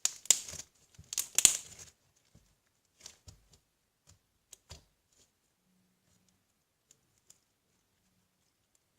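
Slime being pulled and stretched apart by hand: sticky crackling and popping for about the first two seconds, then a few faint pops and clicks that die away.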